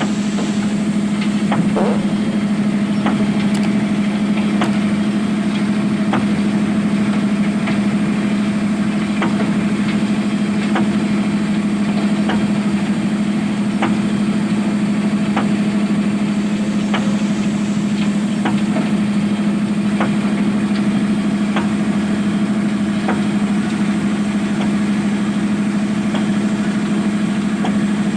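Excavator's diesel engine running steadily at constant speed, a strong even hum, with faint light clicks repeating about every one and a half seconds.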